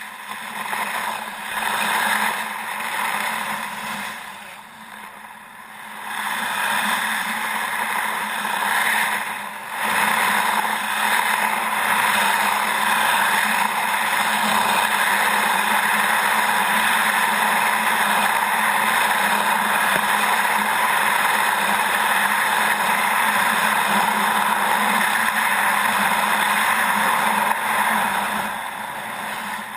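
Kayak hull scraping through thin lake ice, uneven for the first ten seconds, then a steady, loud scraping hiss.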